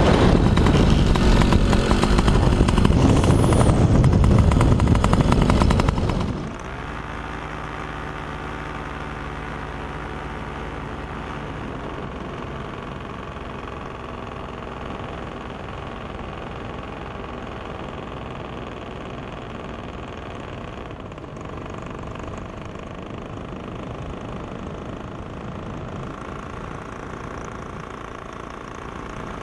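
Loud rushing wind noise over a running paramotor engine during a steeply banked wingover, dropping suddenly about six seconds in to the paramotor engine running steadily with a constant drone.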